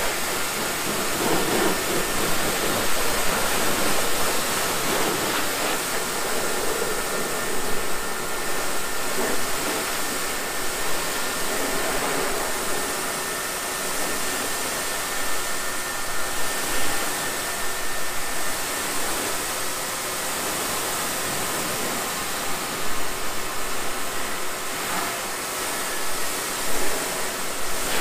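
Pressure-washer jet spraying water onto a car body, rinsing off the foam, with a steady hiss.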